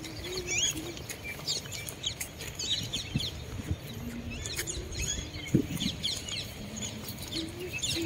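Several small birds chirping in the trees, quick short chirps coming every second or so, over a steady low rumble.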